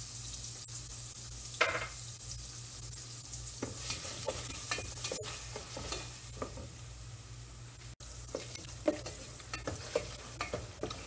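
Chopped onion sizzling in melted butter in a stainless steel pot, with a spoon stirring it and scraping and clicking against the pot.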